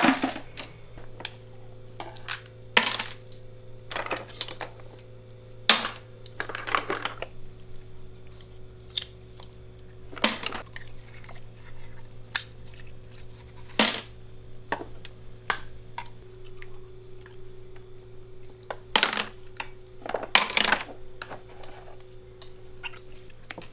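Scattered clicks and clinks of edible snail shells and metal picks knocking against plastic tubs as snails are picked out of their shells by hand, at irregular intervals.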